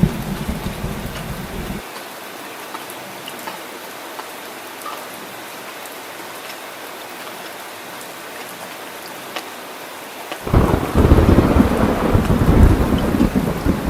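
Heavy rain falling steadily, with thunder: a low rumble stops abruptly about two seconds in, and a much louder rumble of thunder breaks in suddenly about ten seconds in and keeps going.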